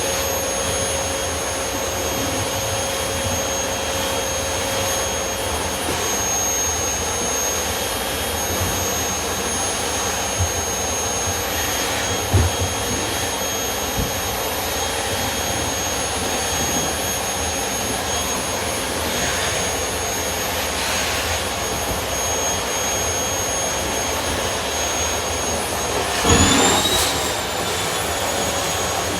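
Household vacuum cleaner running steadily, a constant rushing noise with a high motor whine. A few soft knocks around the middle, and near the end a brief louder rush in which the whine's pitch jumps up and sinks back.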